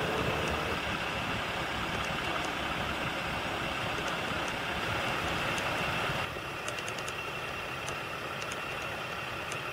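Steady idling vehicle engine noise with a faint high hum, dropping a little quieter about six seconds in.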